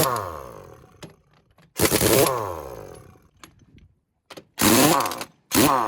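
Pneumatic impact wrench rattling in short bursts on a truck's wheel nuts, with its air motor whining down after each burst. There are three bursts, plus the tail of one at the start.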